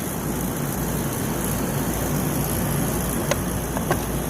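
Steady mechanical hum and rumble of running HVAC equipment, with a faint high whine. Two light clicks come a little past the three-second mark.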